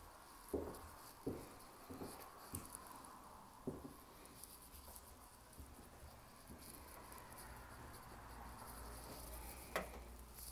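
Footsteps on a tile floor: about five dull steps roughly 0.7 s apart in the first few seconds, over a faint steady hiss. A single sharp click comes near the end.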